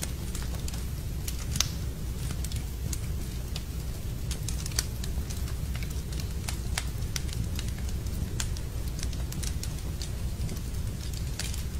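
Wood fire crackling in a fireplace: irregular sharp pops and snaps over a steady low rumble, with a louder pop at about a second and a half and another near five seconds.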